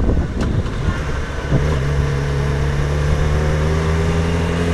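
Motorcycle engine heard from a helmet-mounted camera, with wind and road noise at first. About a second and a half in, the engine's steady drone comes to the front, its pitch sinking slightly.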